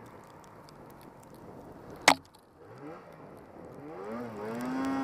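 Snowmobile engine running through deep snow at changing revs, with a single loud, sharp knock about two seconds in. Near the end the engine revs up, rising in pitch, and holds a steady, louder note.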